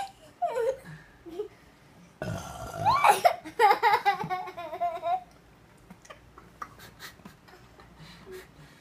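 A man burps once, about two seconds in, and a young child giggles for a couple of seconds right after it.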